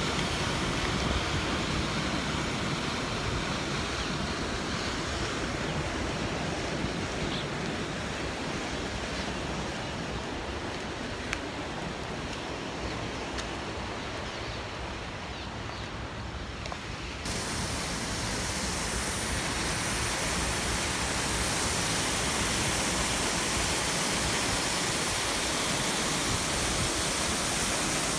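Wind buffeting the microphone over a steady rush of water from the dam's outflow. About two-thirds of the way through, the rushing hiss suddenly becomes brighter and fuller.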